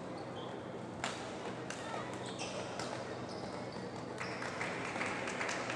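Badminton hall ambience: background chatter of players and spectators, with a couple of sharp hits about a second in and short squeaks of court shoes on the floor; the hubbub grows louder a little past the middle.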